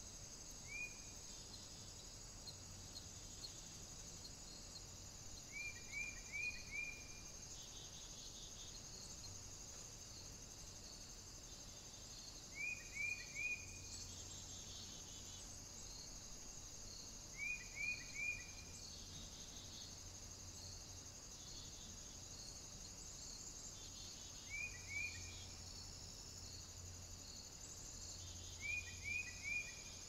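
A faint, steady high-pitched drone of insects, with a short group of two to four quick high chirps about every five or six seconds.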